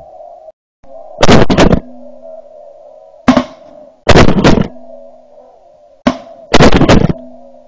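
Shotguns fired at a flock of passing geese: very loud sharp shots in three clusters about two and a half seconds apart. The geese call continuously underneath.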